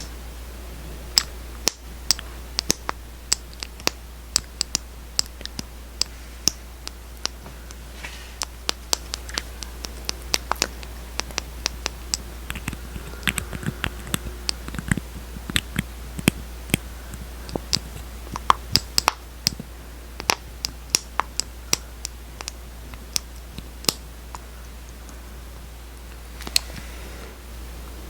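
Close-miked ASMR clicks and taps, sharp and irregular, a couple a second, over a steady low hum.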